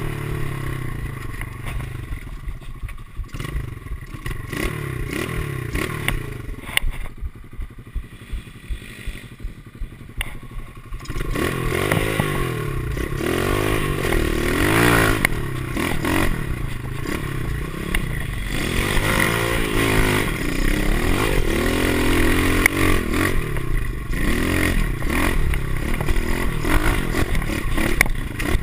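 Pit bike's small single-cylinder four-stroke engine under way on a rough dirt trail, revving up and down, with clattering knocks from the bumpy ground. For the first ten seconds or so it runs quieter with many knocks. From about eleven seconds in it revs louder and harder, the pitch rising and falling.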